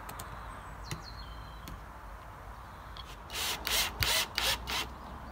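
A cordless drill driver worked against the weather vane's wooden mounting post, giving a few light knocks and then, about three seconds in, about five short rasping bursts as it bites into the wood.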